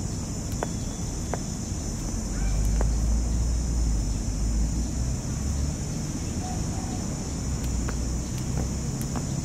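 Jump rope ticking sharply against the paving every second or so, over a steady high insect drone and a low rumble that swells in the middle.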